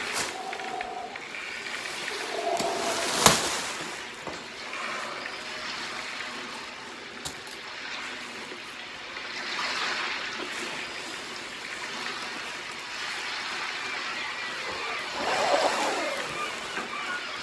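Ocean water sound effect: rushing, trickling water with short bubbling gurgles, and a sharp click about three seconds in.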